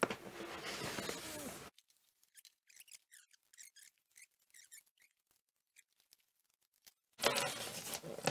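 Styrofoam packaging rubbing and squeaking: the foam box slides out of its cardboard box, a near-silent stretch with faint squeaks follows, and about a second before the end the foam lid scrapes as it is pulled off.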